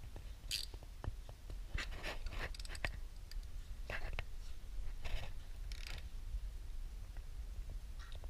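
Socket ratchet clicking in short runs as the bolts of a pump's plug cover plate are run down, with a low steady hum underneath.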